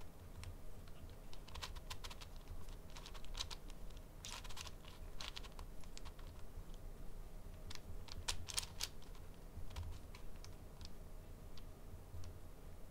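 A 5x5 speed cube turned slowly by hand: its plastic layers click and clack in short clusters of turns, with pauses between moves.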